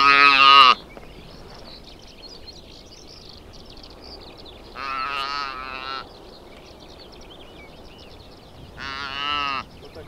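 Young saiga calf bleating while held by hand: three separate calls, the loudest right at the start, another about five seconds in and a shorter one near the end.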